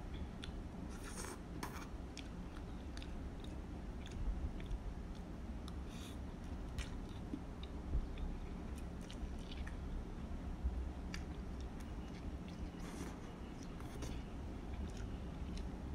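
Close-miked eating of instant curry noodles: chewing and slurping, with scattered short clicks and a few brief louder mouth noises, over a low steady hum.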